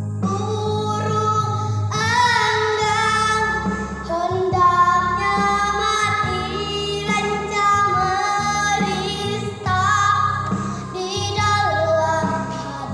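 A young girl singing a solo melody with vibrato over an accompanying backing track.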